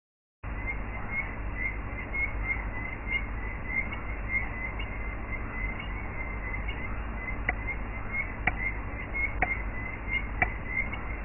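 Night-time ambience on an animation soundtrack: a steady low rumble and hiss with a small high chirp repeating about twice a second, joined from about seven seconds in by a sharp tick about once a second.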